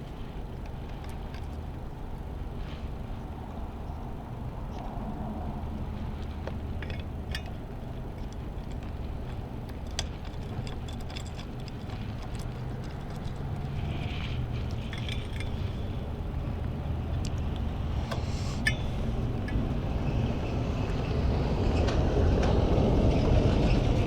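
Light metallic clicks and clinks of hand tools working bolts on an e-bike, over a steady low rumble that grows louder near the end.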